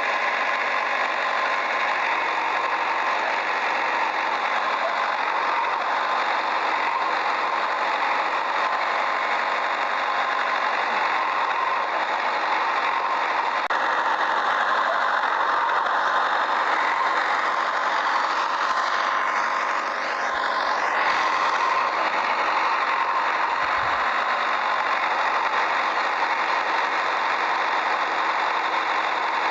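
Small motor and gearbox of a toy mini tractor running steadily, a continuous whirring rattle with no deep engine rumble.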